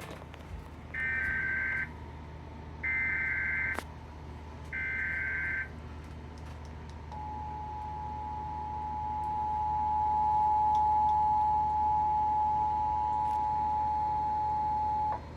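Emergency Alert System header: three roughly one-second bursts of warbling data tones, then the steady two-tone attention signal for about eight seconds. The signal cuts off abruptly shortly before the end.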